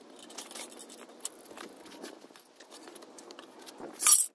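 Light handling noises at a workbench: many faint clicks and rustles, with a short, louder rustle about four seconds in.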